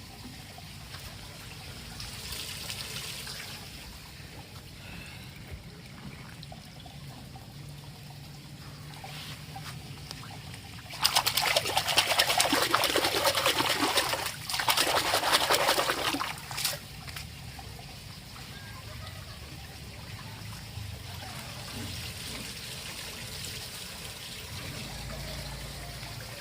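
Water trickling steadily, with a louder rush of water pouring or spraying for about five seconds midway, briefly cut off once and then running again before dropping back to a trickle.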